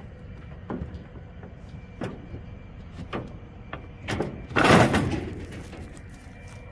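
Heifer's hooves knocking on the steel floor of a stock trailer as she walks out, a few separate clunks, then a louder clatter and rattle of the trailer about four and a half seconds in as she steps down out of it.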